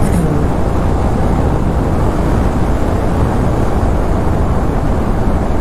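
Steady wind rush over the camera microphone, mixed with the engine and road noise of a TVS Apache RR 310 motorcycle cruising at highway speed in track mode.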